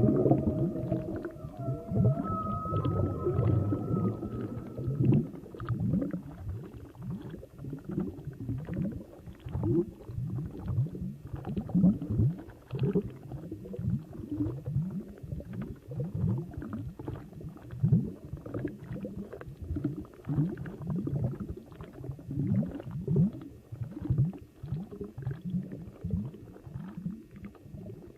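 Underwater ocean recording: a held, moaning two-note call fades out in the first few seconds, followed by a continuous run of short, low gurgling sweeps, roughly two a second.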